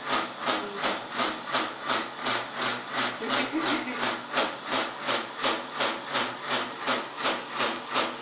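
Electric mixer grinder puffing smoke out of its jar lid in a steady run of hissing chuffs, about three a second, like an old steam train.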